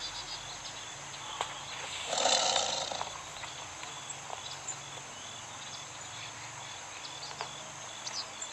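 Tiger sound effect: a steady forest background of insects and small bird chirps, with one loud tiger roar about two seconds in that lasts under a second.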